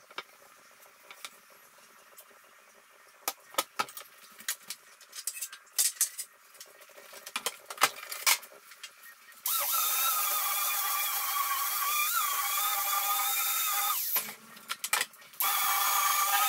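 Scattered light knocks and taps of wooden boards being handled on a workbench, then an electric random orbital sander switches on a little past halfway and runs with a steady high whine. It cuts out for about a second and a half, then runs again near the end.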